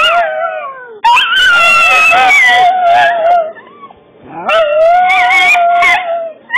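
Chinese crested powder puff dog howling: a falling howl trails off in the first second, then two long, wavering howls follow, the first about two and a half seconds long and the second about a second and a half, with a short break between them.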